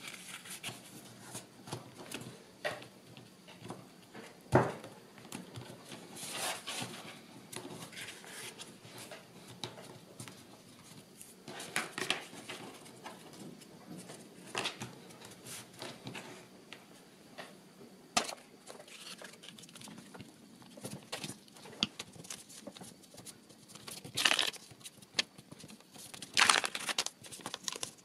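Craft paper and cardboard being folded, creased and pressed by hand on a cutting mat: scattered rustling and crinkling with sliding rubs, and a sharp knock about four and a half seconds in.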